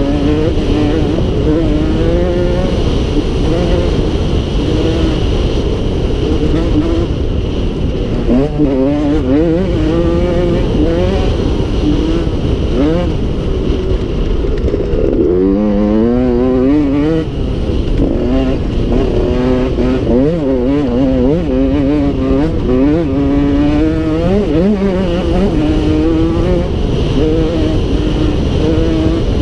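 Dirt bike engine running hard along a rough trail, its pitch rising and falling again and again as the rider works the throttle and shifts gears.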